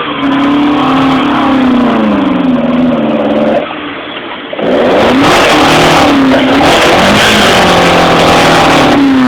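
Car engine revving hard as it climbs a trials section, its pitch rising and falling with the throttle. It eases off briefly about three and a half seconds in, then revs loudly again.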